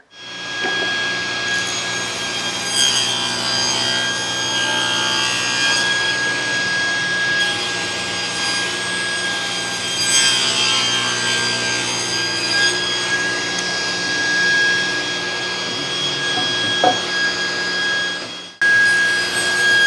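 SawStop table saw running with its blade tilted, cutting a 20-degree bevel along a thick wooden board. The steady whine swells while the blade is in the wood, most around three and ten seconds in.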